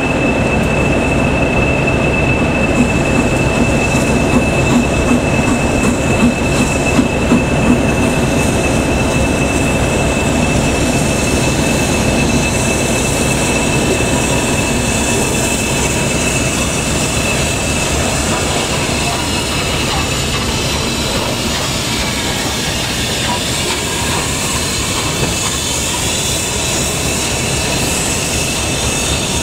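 Class 40 diesel locomotive idling close by: steady running of its English Electric engine with a thin, high turbocharger whistle that fades about halfway through. A few knocks come early in the first third, and a hiss of steam builds in the later part.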